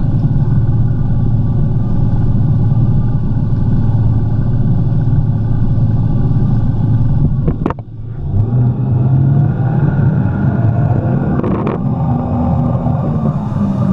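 Jet ski engine running steadily at speed. About halfway through it drops off briefly with a sharp click, then picks back up.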